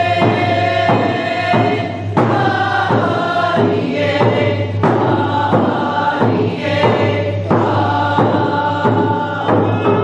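A group of voices chanting a Northwest Coast Native dance song in unison, with a drum struck roughly once a second.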